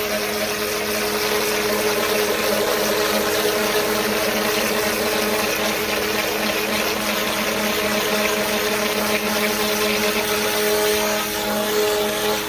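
Westinghouse ePX 1500 electric pressure washer running steadily, its motor and pump giving a constant hum with a few steady tones over a hiss of spray.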